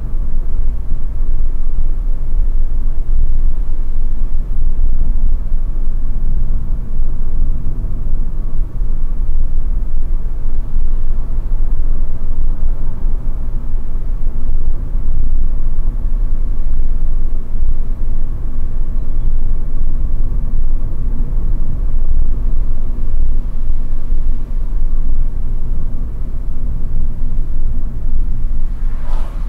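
Steady low rumble of a car's engine and tyres heard from inside the cabin while driving at a moderate, steady speed.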